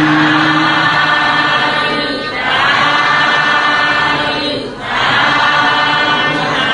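A group of voices chanting together in a Buddhist Pali recitation, in three long drawn-out phrases with a brief break between each.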